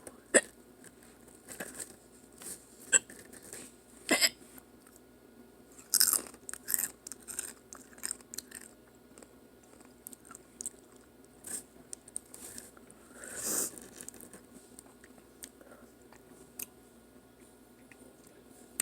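Chewing and crunching on Sriracha Doritos tortilla chips, with irregular sharp crunches between quieter chewing.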